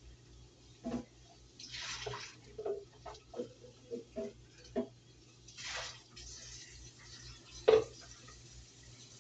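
Kitchen counter handling sounds: a string of light knocks and clicks from dishes and utensils being moved, two brief hissing rushes about two and six seconds in, and one sharp, loud knock near the end.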